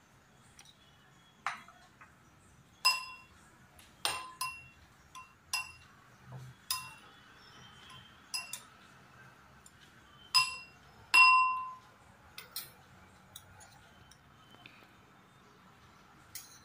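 Metal spoon clinking against a glass mixing bowl while soya chunks are tossed in cornflour: a dozen or so irregular ringing clinks. The loudest and longest-ringing clink comes about eleven seconds in, and the clinks thin out near the end.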